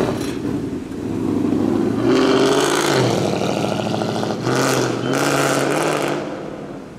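Ford Mustang V8 exhaust accelerating hard away. The engine note climbs, dips about three seconds in, pulls strongly again from about four and a half seconds, then fades as the car moves off.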